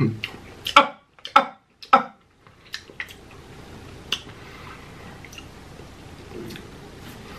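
Close-miked crunching of Takis rolled corn tortilla chips being chewed: a few loud crunches in the first two seconds, then sparser, fainter clicks of chewing.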